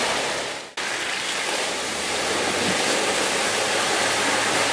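Steady rushing noise, like water or wind, with an engine faintly running underneath; the sound drops out for an instant about a second in, then carries on.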